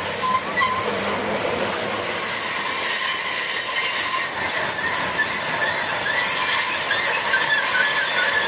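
HO scale intermodal freight cars carrying trailers rolling past on the track: a steady rolling noise with short wheel squeals now and then.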